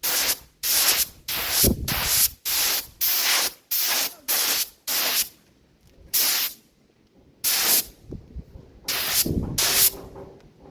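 Spray paint hissing from the nozzle in short bursts. About ten bursts come in quick succession, then a pause about five seconds in, then a few more spaced-out bursts.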